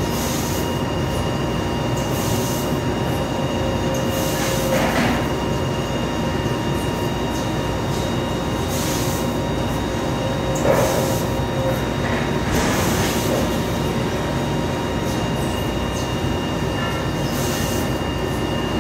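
Fiber laser cutting machine running while it cuts thin 24-gauge stainless steel sheet: a steady machine hum with a couple of held tones, broken by short hissing bursts every few seconds.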